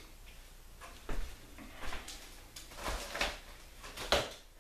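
A person moving about a small room: about five irregular knocks and clunks with some shuffling, the loudest near the end.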